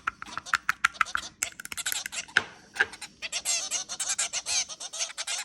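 Birds chirping rapidly, many short high chirps a second, growing into a denser continuous chatter about three seconds in.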